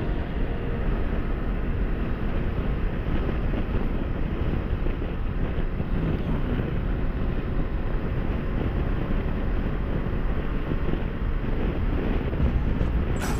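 Steady wind rush over the microphone of a motorcycle ridden at highway speed, with road and engine noise blended underneath.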